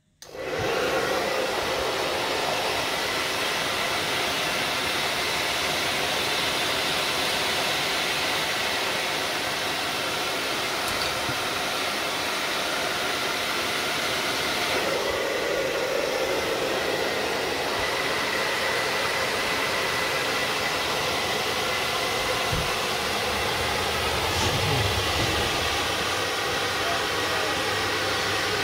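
A powerful hair dryer blowing hot air steadily, with a faint whine. It is heating the starter motor's housing to free a seized, rusted screw.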